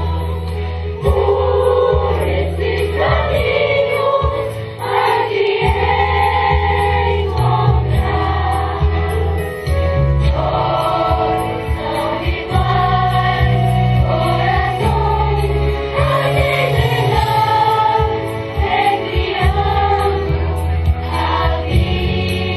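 Children's choir singing a song with instrumental accompaniment that carries a steady deep bass line.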